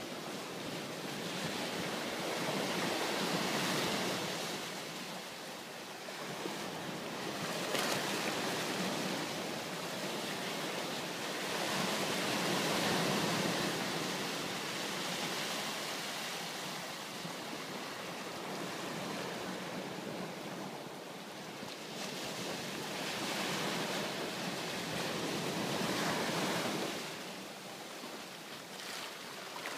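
Small waves breaking and washing up a sandy beach, the surf noise swelling and easing every few seconds.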